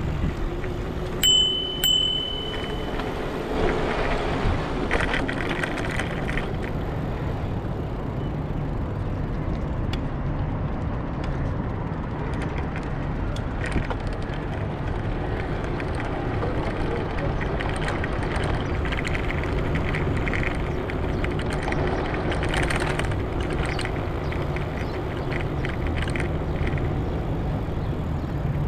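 Steady riding noise of a Careem share bicycle rolling along a paved path: tyre and frame noise with air rushing past. A short high ring sounds about a second in.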